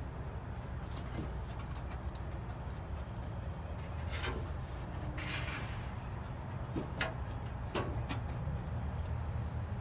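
Hand handling noises of controller wires being pulled and worked inside a steel pellet grill: scattered light clicks and a brief rustle about five seconds in, over a steady low background hum.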